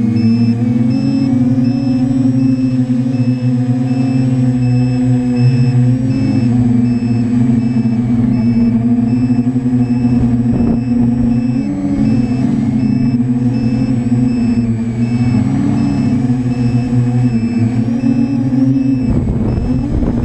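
The four electric motors and propellers of a TBS Discovery Pro quadcopter, picked up by the camera on board: a loud, steady drone whose pitch wobbles up and down as the motors speed up and slow down, with a thin, steady high whine above it. Near the end the sound turns rougher and more gusty as the quadcopter comes down low.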